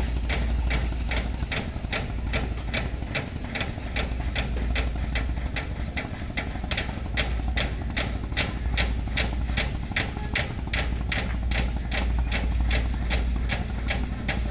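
An engine running steadily with a low hum and a regular sharp mechanical ticking, nearly three ticks a second.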